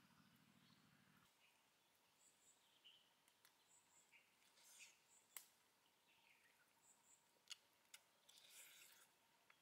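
Near silence with faint eating sounds: scattered soft clicks and short rustles of roasted duck meat being torn by hand and chewed, with a few faint high chirps.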